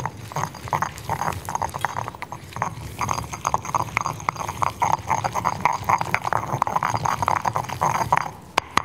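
Stone pestle pounding and mashing garlic, chili flakes, lemon juice and olive oil in a stone mortar: a fast, rhythmic run of wet stone-on-stone knocks that stops shortly before the end, followed by a single sharp knock.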